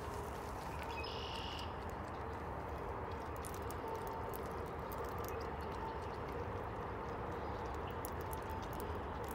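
Raccoons foraging for and eating sunflower seeds on the ground: scattered small clicks and crunches over a steady background hiss, with a short high-pitched tone about a second in.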